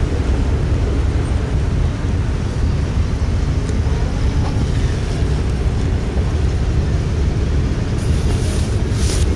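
Intermodal freight train rolling past, a steady low rumble of its cars on the rails.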